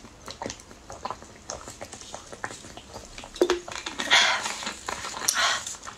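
A person drinking from a plastic bottle, with a series of small gulping and mouth clicks, then two loud, breathy exhales near the end.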